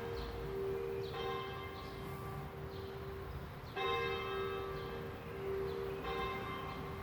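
Church bells ringing: three strikes about two and a half seconds apart, each ringing on with a long hum into the next.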